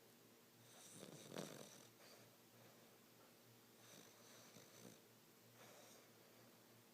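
Quiet snoring, one snore roughly every two to three seconds. The first, about a second in, is the loudest.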